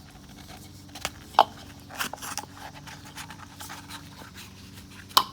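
Sharp clicks, knocks and scrapes of a broken, stuck oil filter element being handled and pulled off its housing cap. The loudest click comes about a second and a half in, a cluster follows around two seconds, and one more comes near the end.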